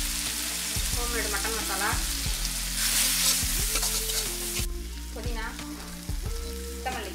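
Masala with mutton frying and sizzling in a large metal wok while a steel spoon stirs and scrapes it. The sizzle is loudest about three seconds in and drops off sharply past halfway.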